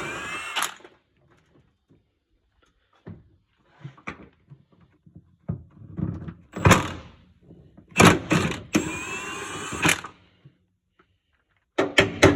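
Cordless impact wrench with a socket undoing bumper bolts in two short runs, one at the start and one about nine seconds in, each with a rising whine. Sharp metallic knocks and clunks come in between as the tool and bolts are handled.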